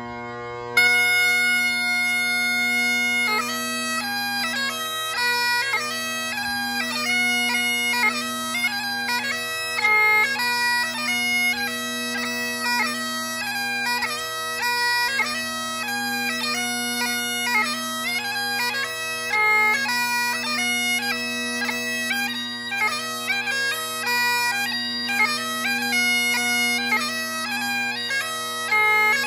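Great Highland bagpipe: the drones sound steadily throughout. The chanter comes in about a second in on a held note, and from about three seconds in it plays a quick-moving tune over the drones.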